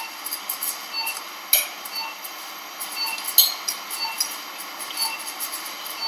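Steel surgical instruments (needle holder, forceps, retractors) clicking and clinking against each other while a suture is placed. The sharp clicks come at irregular intervals, the loudest about one and a half seconds in and again a couple of seconds later.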